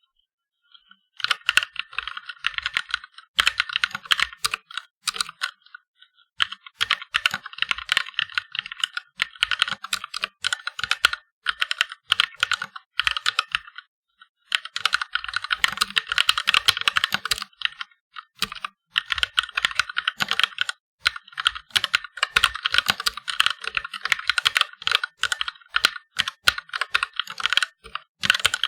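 Fast touch-typing on a Chinese-made mechanical keyboard with red linear switches: quick runs of key clicks broken by several short pauses.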